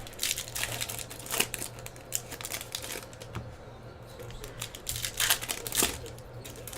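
Foil trading-card pack wrappers crinkling and tearing as packs are opened by hand: irregular crackles, thickest about five seconds in.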